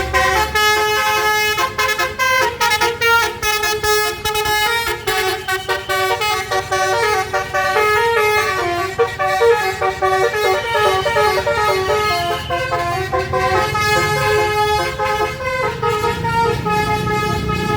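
Bus's telolet 'basuri' melody horn playing a tune of quick stepped notes the whole way through, loud. A low rumble grows beneath it near the end.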